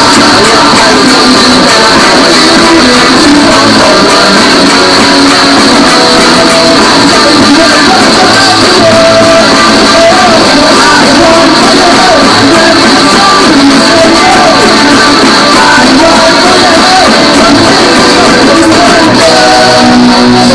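Loud punk rock: an electric guitar strummed fast along with a backing recording that has singing.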